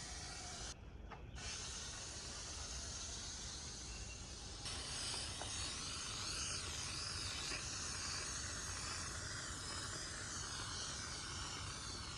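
Aerosol spray can of contact cement spraying with a steady hiss. The hiss breaks off briefly about a second in, then resumes slightly louder from about the middle.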